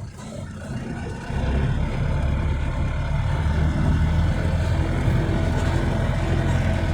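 A motor vehicle's engine running steadily, getting louder about a second in and holding there.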